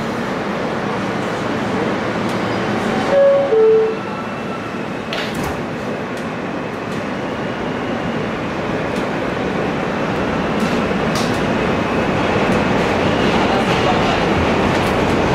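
Inside a New York City subway car: steady running noise, with a two-note falling door chime about three seconds in and a sharp knock about two seconds later. After that the train noise grows steadily louder toward the end.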